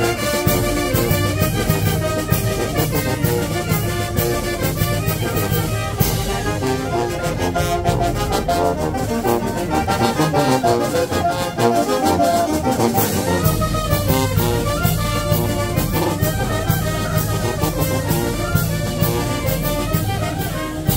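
Brass-led dance music with trumpets and trombones over a steady beat, playing for couples dancing. The deep bass drops out for a couple of seconds just past the middle, then returns.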